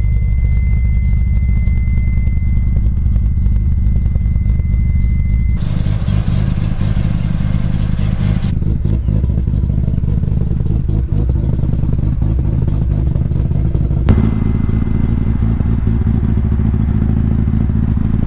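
Mazda RX-7 FD's twin-turbo 13B rotary engine idling steadily, its exhaust loud and low, the sound shifting abruptly a few times. A steady high tone rings over it for the first five seconds or so, and a single sharp knock comes about three quarters through.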